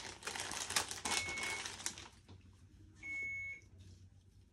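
Plastic IV supply packaging crinkling and tearing for about two seconds, then a single short electronic beep from an IV infusion pump about three seconds in.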